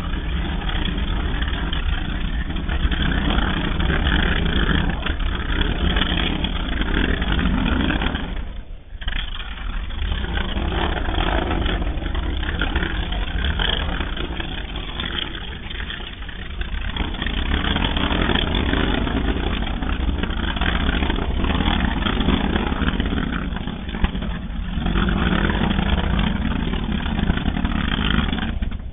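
Infrasonic jet noise from the sustained explosive eruption of Tungurahua volcano, recorded 37 km away and sped up 200 times into hearing range: a continuous jet-like rushing noise. It falls away briefly several times, most deeply about nine seconds in.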